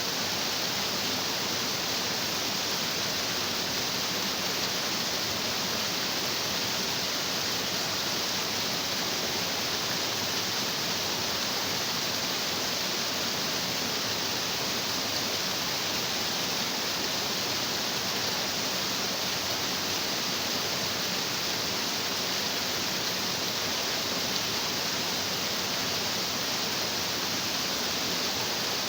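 A stream of water rushing over rocks: a steady, even rush with no breaks or changes.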